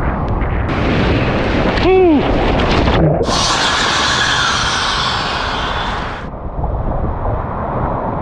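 Heavy wind buffeting the microphone over rushing water during kitesurfing, with the sound changing abruptly a few times. About two seconds in, a short vocal cry rises and falls in pitch.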